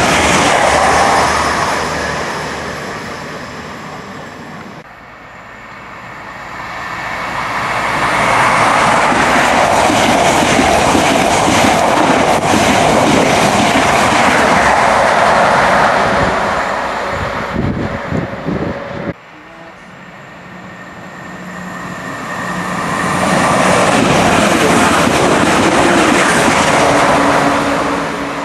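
Trains running through a station at speed, in three separate clips. First, an electric multiple unit rushes past and its noise fades away. Then an HST with its diesel power car builds up to a loud passing rush that lasts several seconds, and a third train's noise builds and fades near the end.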